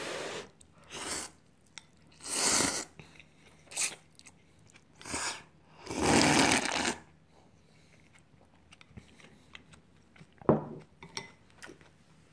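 Ramen noodles and tonkotsu broth being slurped: about six loud, noisy sucks in the first seven seconds. After that come softer eating sounds with small clicks, and a sharp knock about ten and a half seconds in.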